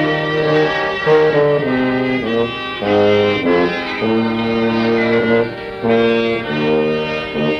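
Clarinet, accordion and bass tuba playing a hymn tune together: a melody of held notes changing about every half second over a bass line.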